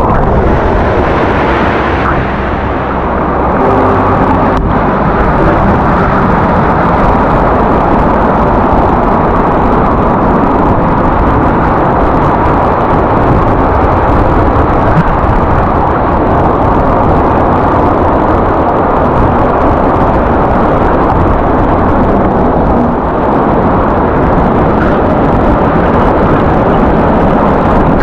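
Waterfall: a steady, loud rush of falling water with a deep, low-heavy rumble and little high hiss.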